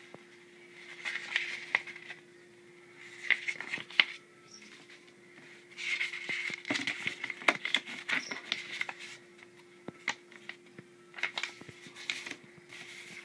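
Paper leaflets rustling and crackling as they are leafed through and shuffled by hand, in several bursts with short pauses between, the longest burst in the middle. A faint steady hum runs underneath.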